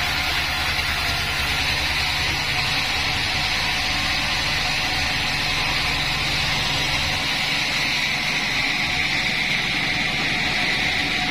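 Large band sawmill running steadily, a constant machine drone under an even hiss, as it saws a mahogany log.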